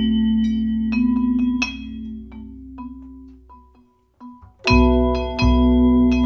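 Vibraphone chords struck with mallets and left ringing, over plucked double bass notes. The music dies away almost to silence about four seconds in, then both come back in loudly.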